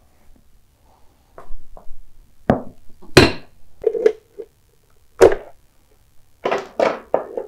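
Irregular sharp knocks and clinks, about ten in all, from a hand tool and small metal parts handled while undoing a side-cover fastener on a Honda Monkey; the loudest two come about three and five seconds in.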